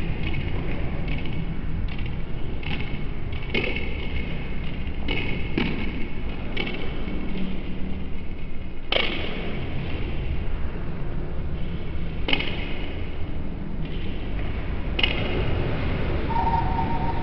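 Table tennis ball clicking off the bats and bouncing on the table, each click sharp with a short ring. The clicks come in quick runs in the first seven seconds, then singly a few seconds apart, over a steady low hall rumble.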